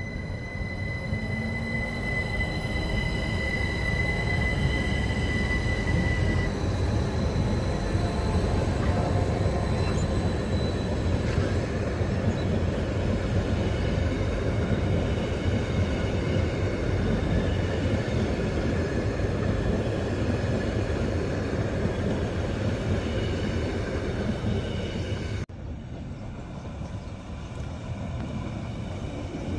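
Rhaetian Railway narrow-gauge Bernina Express train, hauled by an Allegra electric multiple unit, rolling past with a steady rumble of wheels on rails. A high, steady whine sounds over the rumble for the first few seconds, and the sound drops quieter near the end.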